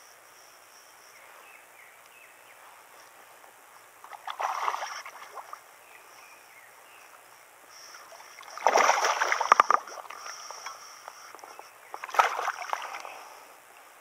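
A hooked bass splashing and thrashing at the water's surface as it is played in on a rod. There are three bursts of splashing: about four seconds in, a louder, longer one around nine seconds in, and another around twelve seconds in.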